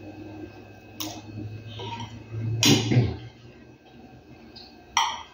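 Close-up eating sounds: chewing and mouth noises from a mouthful of rice, beans and couscous, loudest about halfway through. Near the end a metal spoon clinks sharply against the plate as he scoops up more food.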